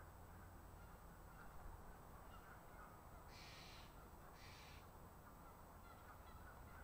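Near silence with a faint low rumble; a crow caws twice, short and harsh, about three and a half seconds in.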